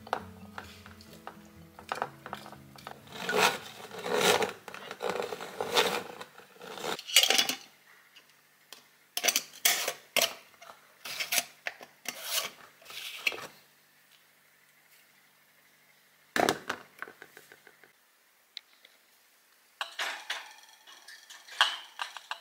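Kitchen handling sounds: dishes and utensils clinking and rubbing in a series of scraping strokes about a second apart, then a sharp clatter and light rustling near the end.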